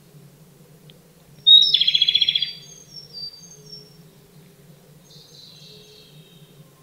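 Japanese robin (Larvivora akahige) singing: a sharp high note followed at once by a fast, loud trill that trails off into thinner high notes, then a softer second phrase a few seconds later.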